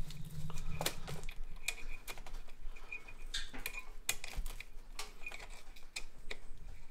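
Small metal parts and hand tools clicking and clinking as they are handled, a series of short irregular clicks, some with a brief ring. A power tool's whir stops about a second in.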